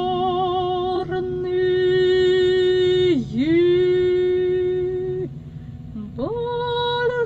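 Operatic soprano voice singing long held notes without words, wavering with vibrato at first; about three seconds in the pitch dips sharply and climbs back, the note stops a little past five seconds, and a new note slides up soon after. A steady low hum lies beneath.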